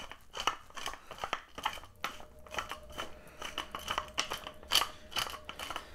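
Tall hand-twisted pepper mill grinding peppercorns: a steady run of uneven gritty clicks and crackles as the top is turned back and forth.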